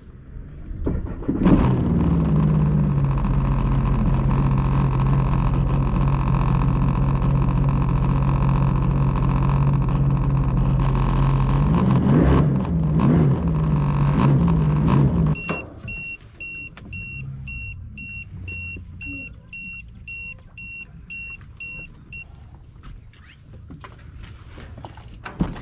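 Sea-Doo Fish Pro Trophy personal watercraft engine starting with a jolt about a second in and running at a steady idle, its pitch wavering briefly, then cutting off suddenly about fifteen seconds in. A high electronic beep then repeats about twice a second for some seven seconds, followed by a few light knocks and a thump.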